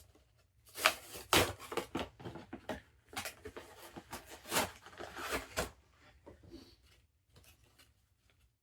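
Toy packaging being torn open by hand: a run of quick, loud rips and rustles for about five seconds, then a few faint handling noises.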